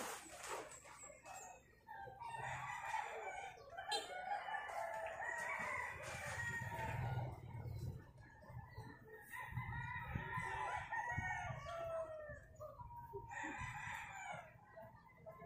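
Roosters crowing, several long crows one after another.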